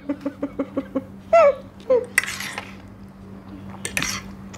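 A woman giggling in quick short pulses for about the first second, then a couple of brief voiced sounds. After that comes a short scrape and a clink of a fork and spoon working on a plate of noodles.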